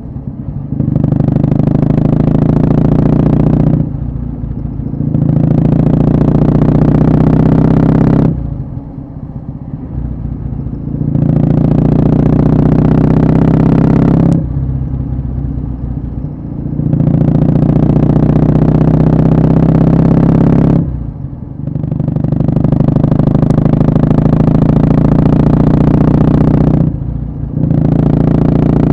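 Kawasaki W650's vertical-twin engine through short Yamato Stainless Cabton-style mufflers, the motorcycle under way: the engine pulls loud and climbs in pitch, then drops away as the throttle closes. The pattern repeats about five times.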